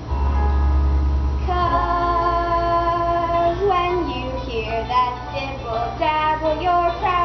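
Young voices singing a musical-theatre number with instrumental accompaniment. The singing comes in about a second and a half in, over a low rumble.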